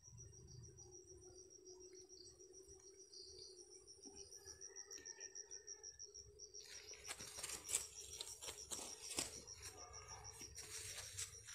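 Faint, steady high-pitched insect trill made of rapid even pulses. From about seven seconds in come rustling and wing-flapping sounds, with two sharper slaps, as the caught red junglefowl struggles in the hand.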